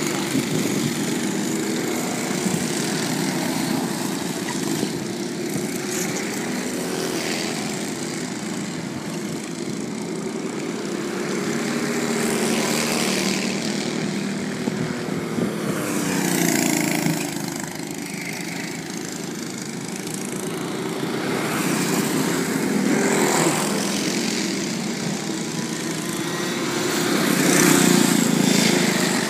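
Small two-stroke engines of 60cc Comer karts buzzing as they lap the circuit, rising and falling in pitch and loudness as the karts come and go, loudest about halfway through and again near the end.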